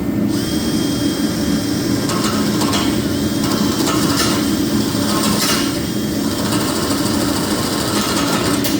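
Electric drill running with a steady high whine, its bit scraping and cutting through fresh weld as it bores out a welded-up hole in the steel rake frame. The drilling starts just after the beginning and stops near the end.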